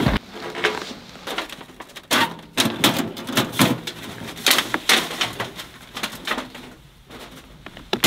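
Irregular knocks, clicks and scrapes from metal parts being handled while a lightweight wood stove's chimney pipe is fitted together.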